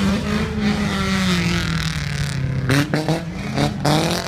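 Racing engine running with its pitch falling slowly, with a few short sharper notes about three seconds in.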